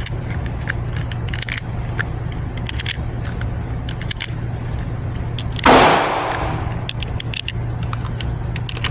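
Small metallic clicks and rattles of a pistol and its magazines being handled, then a single gunshot about five and a half seconds in that rings out and fades over about a second.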